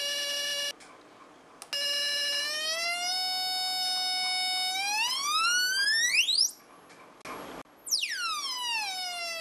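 Buzzy square-wave tone from a 555 timer and LM386 electronic horn circuit through a small speaker. It stops briefly about a second in, then rises in pitch as the frequency trimmer is turned, climbing until it goes too high to hear about six seconds in. After a brief hiss it sweeps back down to its starting pitch near the end.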